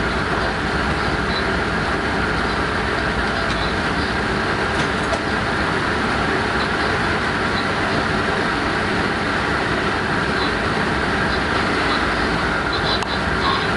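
Class 186 (Bombardier TRAXX) electric locomotive running along the track: a steady rumble of wheels and running gear on rail.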